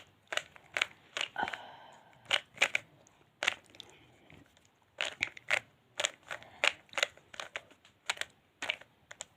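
Plastic 3x3 Rubik's cube being turned, its layers snapping round in sharp clicks and clacks at an irregular pace, about two a second.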